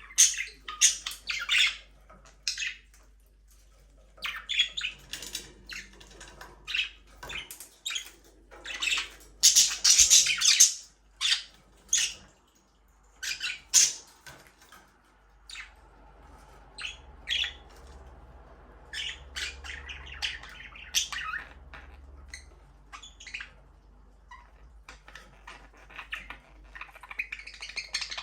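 Budgerigars chirping and squawking in short, sharp clusters of calls with brief pauses between, the loudest flurry about a third of the way in.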